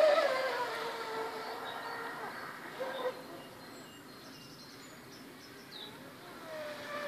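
High-pitched whine of an RC hydroplane's brushless electric motor running flat out, a 3030KV motor on a 4S LiPo pack. The pitch drops and the sound fades as the boat races away. It stays faint for a couple of seconds, then swells again as the boat comes back near the end.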